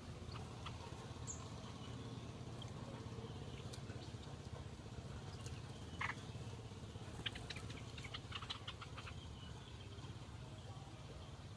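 Faint outdoor background with a steady low hum, broken by scattered short chirps and quick clicks: one brief chirp about halfway through, then a cluster of ticks.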